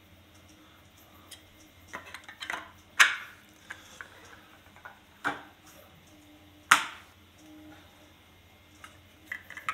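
3D-printed plastic model submarine parts knocking together as they are handled and fitted. A few light taps, then two sharp clacks, about three seconds in and again about seven seconds in.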